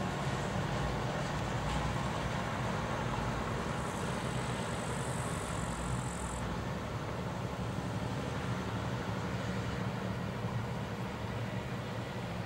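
Diesel engine of a DR railbus ('Ferkeltaxe') running steadily as the railcar pulls away along the track, fading slightly towards the end.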